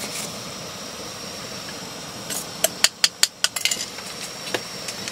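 Propane camp stove burner hissing steadily under a pot of water. About two and a half seconds in comes a quick run of sharp clinks and knocks, with one more near the end, as a metal cup and a coffee container are handled.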